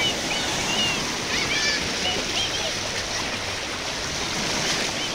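Small waves breaking and washing up a sandy shore, foaming around a wader's ankles in the shallows: a steady wash of surf.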